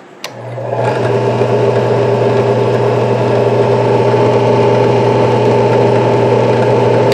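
WEN 4208 8-inch five-speed drill press switched on with a click, its motor spinning up over about a second and then running steadily with a low hum and a steady whine.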